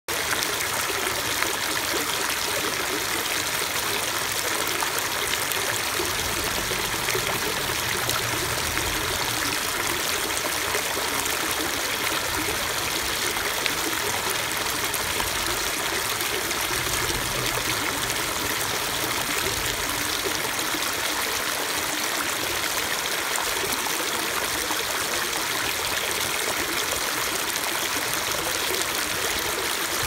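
Small stream of water splashing down over mossy rocks into a foaming pool: a steady, unbroken rush and splash, mostly in the higher register.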